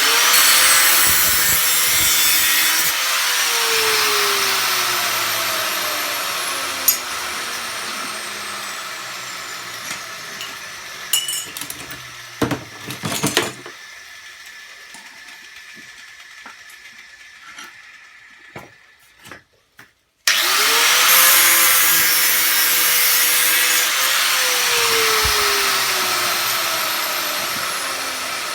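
Electric power tool cutting through scrap copper and brass: the motor spins up quickly to a steady pitch with a harsh cutting hiss, then slowly sags in pitch and level. It stops with a few knocks shortly before it falls quiet about twenty seconds in, then starts up again and cuts once more.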